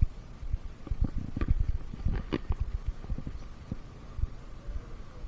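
Irregular low thumps and rumbling from wind buffeting and handling on the microphone, with a faint steady hum appearing about halfway through.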